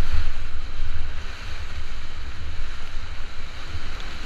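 River whitewater rushing around a paddled raft, a loud steady hiss of water, with wind buffeting the action camera's microphone in a heavy, uneven low rumble.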